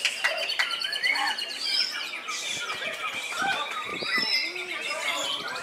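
White-rumped shama singing: a run of varied whistles, glides and trills, overlapping with a dense chorus of other caged songbirds.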